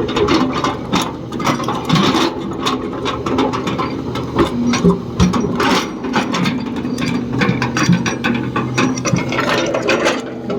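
Excavator diesel engine running steadily, with frequent irregular knocks and metallic rattles over it.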